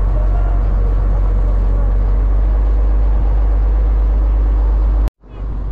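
Boat engine running with a steady low rumble. It drops out abruptly for a moment about five seconds in, then resumes.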